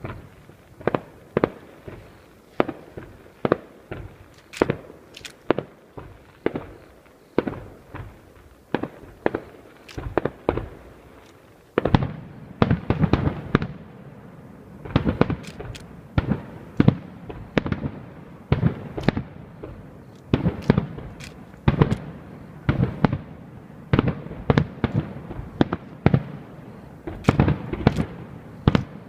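Aerial fireworks shells bursting in a steady run of sharp bangs, each with a short echoing tail. About twelve seconds in the bursts come thicker and louder over a continuous crackle.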